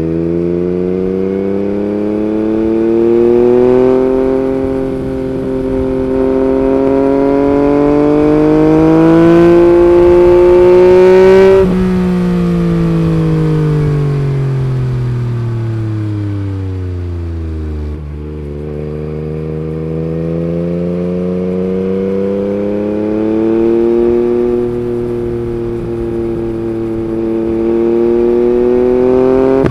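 Yamaha MT-09 three-cylinder engine running through an Akrapovic Racing Line carbon exhaust while riding. The revs climb steadily for about eleven seconds, then the throttle snaps shut and the note falls away for several seconds before the engine pulls up through the revs again. The revs drop suddenly right at the end.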